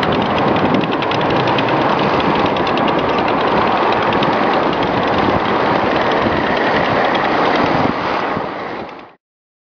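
Several T-34 tanks driving at speed: engines running under a fast, even clatter of tracks. It fades out near the end.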